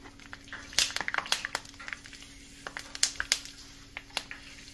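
Dehydrated pork skins crackling and popping in hot vegetable oil in an electric deep fryer as they puff up into pork rinds: irregular sharp crackles over a steady low hum.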